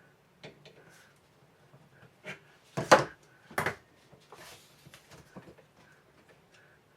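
Clicks and knocks of Daisy 880 air rifle parts being handled and set down during disassembly. The two loudest knocks come about three seconds in, half a second apart, followed by a brief rubbing sound.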